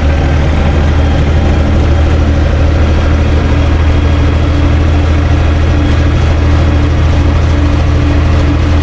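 UTB 445 4x4 DT tractor's diesel engine running at a steady speed as the tractor drives along a road, heard from inside the cab.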